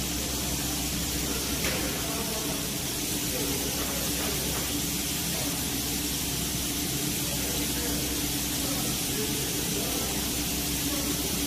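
Nurungji production line machinery running: a steady hiss over a low, steady hum, with a faint click about two seconds in.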